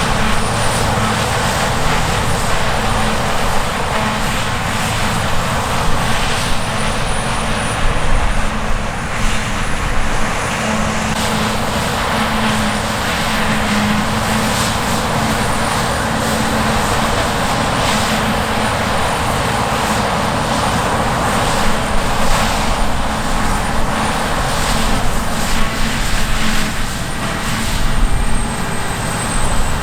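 Claas Lexion 770 TT combine harvester running steadily under load while harvesting grain: a constant engine drone with a hissing, crackling rush of threshing and cutting over it.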